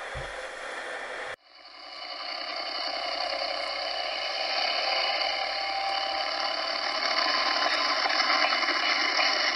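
Model railcar running on a model railway layout: a steady mechanical whir with several fixed whining tones, slowly growing louder. It starts after a sudden cut about a second and a half in.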